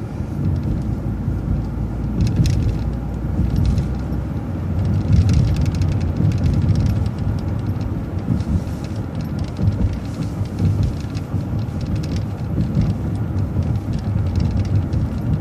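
City transit bus running, heard from inside the passenger cabin: a steady engine and road rumble with faint clicks and rattles now and then.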